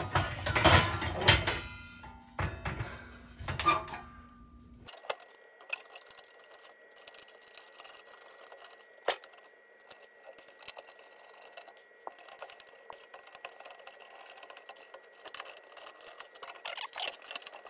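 Sheet-metal oven parts clanking and rattling as they are refitted by hand, loud for the first few seconds. After that come faint, scattered clicks and small metal rattles, with a thin steady tone under them.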